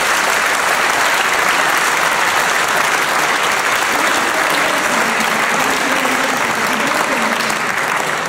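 Large audience applauding, many people clapping steadily and loudly.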